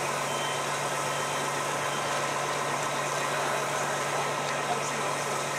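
A steady engine-like drone with a constant low hum and no change in level, like an engine idling.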